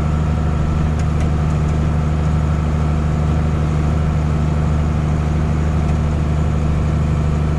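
Tractor engine running steadily at a constant speed, a low, even drone.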